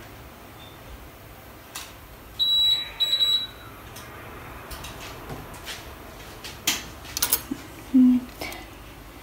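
An electronic beeper sounds two high-pitched beeps of about half a second each, a few seconds in. Later come a few light clicks and knocks.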